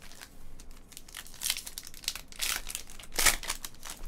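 Foil wrapper of a trading card pack crinkling and tearing as it is handled and peeled open, in a few separate crackling bursts, the loudest about three seconds in.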